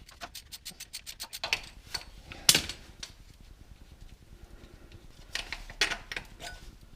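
Ratchet wrench clicking quickly, about ten clicks a second, as the single bolt holding the engine safety cable is backed out. A few separate metal clanks follow, the loudest about two and a half seconds in.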